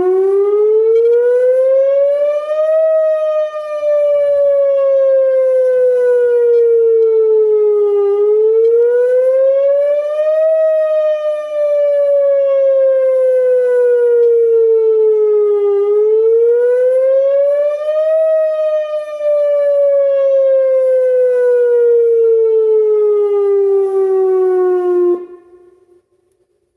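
Whelen outdoor tornado warning siren sounding a wail during a test of the emergency warning system: a loud tone that climbs for about three seconds and slides slowly back down for about five, three times over, then cuts off near the end.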